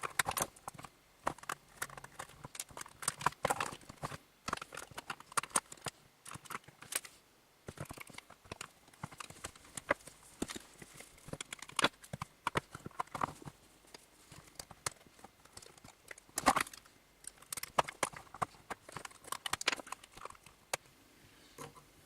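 Irregular clicks, taps and knocks of tools and hands working at the tight press-fitted plastic housing of a Dyson V6 Animal vacuum's motor unit.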